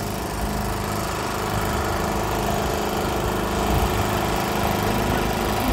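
A small engine running steadily with an even hum.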